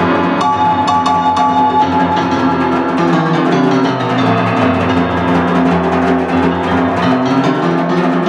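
Snare drum played with sticks in a run of quick strokes over sustained keyboard chords that change a couple of times.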